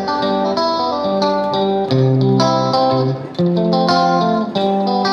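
Background music: a plucked guitar playing a melody over chords.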